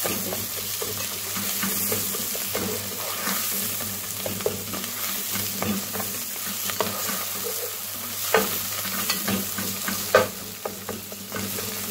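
Onions and ginger-garlic paste frying in oil in a non-stick pan with a steady sizzle, stirred continuously with a spatula that scrapes and knocks against the pan. Two louder knocks come in the last few seconds.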